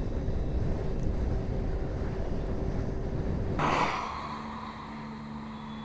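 Wind and road noise rushing past while riding an electric scooter at about 64 km/h, with a faint steady tone under it. About three and a half seconds in it cuts off with a brief whoosh, leaving a quieter low steady hum with the scooter at a standstill.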